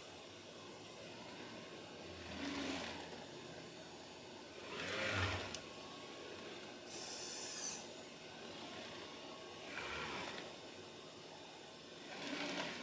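Bimanual robot's arm and gripper motors whirring in short bursts a few seconds apart over a steady hiss, the loudest about five seconds in.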